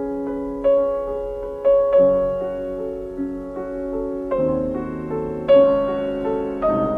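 Background piano music, slow, with a new note or chord about every second.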